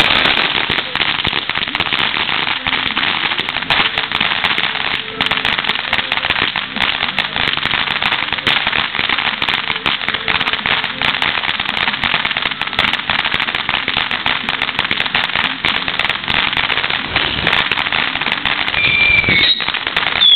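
Ground fountain firework crackling densely and continuously. Near the end a high whistle starts and glides down in pitch.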